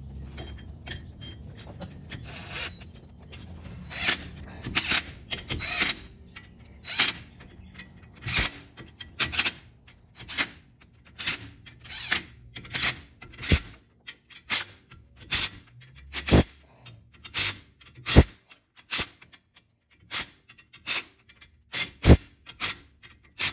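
A hand ratchet worked in short, even strokes, its pawl rasping about one and a half times a second, snugging down bolts on a quick-change rear end before they are torqued. A low steady hum sits under it and fades out about halfway.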